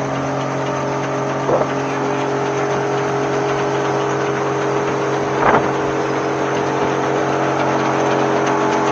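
A heavy machine's engine runs steadily at a constant speed, with two short cracking noises about a second and a half in and again about five and a half seconds in.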